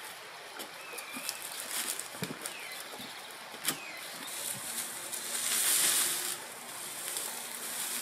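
Dry water reed rustling and crackling as it is handled and pressed along a roof ridge, with a few light snaps and knocks in the first few seconds. A louder spell of hissing rustle comes about five seconds in and again near the end.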